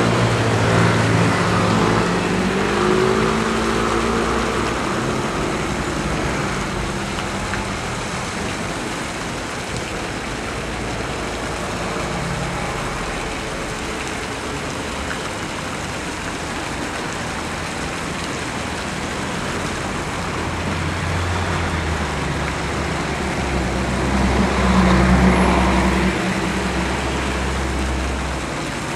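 Road traffic passing through a city square, a steady hum of cars, with a heavier vehicle's low engine rumble swelling and loudest near the end.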